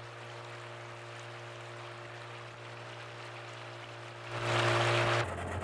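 Outboard motor of a motorised pirogue (dugout canoe) running steadily under the rush of river water along the hull. About four seconds in, the rushing noise grows louder for about a second, then the engine hum drops abruptly to a lower note.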